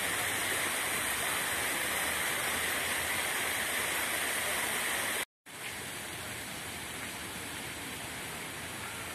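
Steady, even rushing hiss like running water. It breaks off briefly about five seconds in, then carries on a little quieter.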